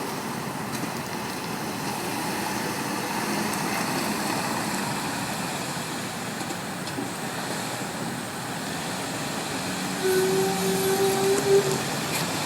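2007 Lexus ES350 rolling slowly with steady road and tyre noise, then about ten seconds in a steady, low-pitched squeal from the brakes that lasts under two seconds. It is the recurring brake squeal that new rear brake pads did not cure.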